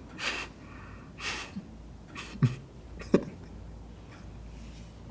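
A man's breathing and small vocal noises: two audible breaths, then two short voiced sounds, the first falling in pitch, the kind of breathy half-laughs made while grinning to himself.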